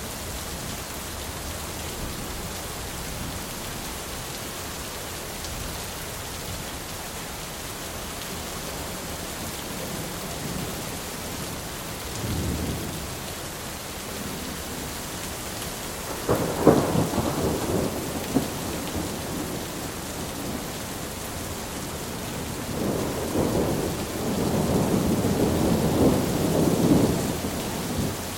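Thunderstorm: steady rain hissing, with rolls of thunder. There is a short rumble about twelve seconds in, a sharp crack with a rumble at about sixteen seconds, and a long rolling peal in the last five seconds.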